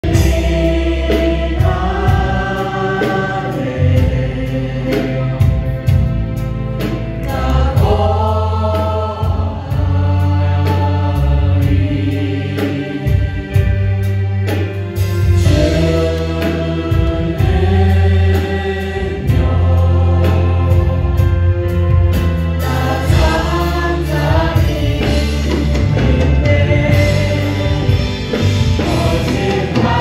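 A live worship band plays a Korean contemporary worship song. Several young female voices sing together into microphones over electric guitar, bass guitar and drum kit, with a steady beat of drum hits throughout.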